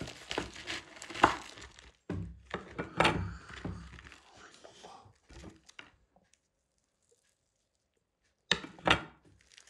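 Serrated knife sawing and crunching through the hard, crusted skin of a baked potato, a crackling and tearing noise, then the crust breaking as the potato is split. Two short knocks near the end.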